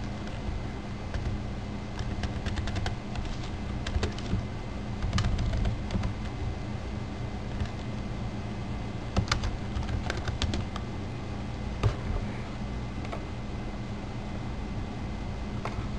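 Computer keyboard typing in short bursts of clicks, with pauses between, over a steady low hum.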